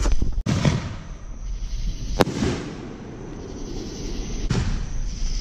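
Consumer fireworks bursting in the sky with several sharp bangs, the loudest about two seconds in.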